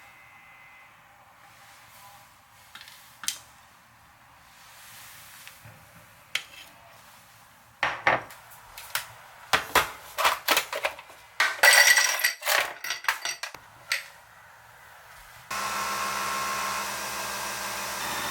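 Clinks and knocks of kitchen dishes and utensils being handled, then a small electric motor appliance switches on about three-quarters of the way through and runs steadily.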